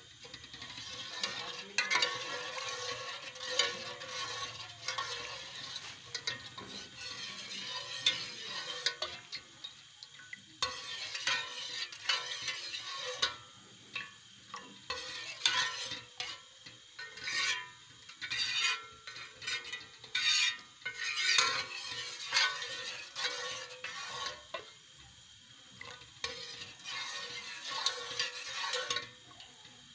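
Steel ladle stirring thickening tomato ketchup in a metal pot, scraping the sides and bottom in irregular strokes. The ketchup has just had cornflour stirred in to thicken it.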